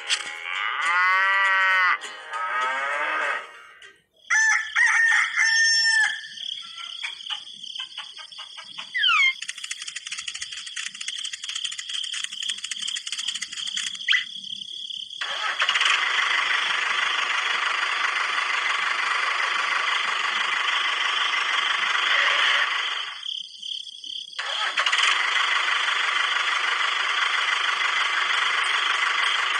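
A rooster crowing in short pitched calls, followed by a toy tractor's small electric motor running with a steady whir. The whir stops for about a second near the middle and starts again.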